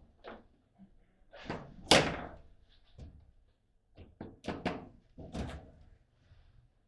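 Table football rally: the ball knocked by the players on the rods and banging against the table, a run of sharp irregular knocks. The loudest knock comes about two seconds in, and a quick cluster follows between four and five and a half seconds.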